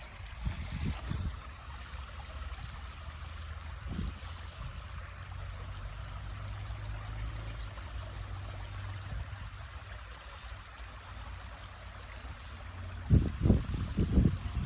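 A river stream burbling steadily over a low rumble. Near the end, a few loud low thumps break in.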